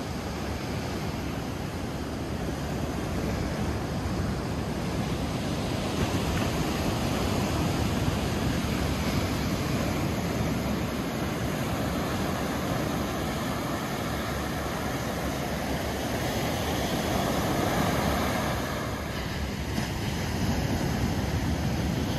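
Small ocean waves breaking and washing up a sandy beach in a steady surf wash, with wind rumbling on the microphone. The surf swells louder about three quarters of the way through, then eases briefly.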